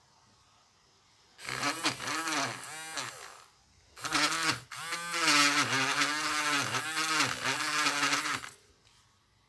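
Battery-powered electric eraser spinning its rubber tip against paper while erasing pencil marks: a motor hum with a scratchy rubbing hiss, its pitch dipping and recovering again and again through the strokes. It runs in two spells, about two seconds and then about four and a half seconds, with a short break between.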